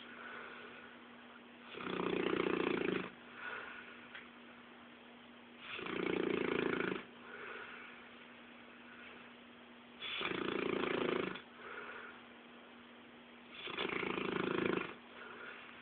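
English Mastiff snoring in its sleep: four loud snores about four seconds apart, each followed by a softer breath.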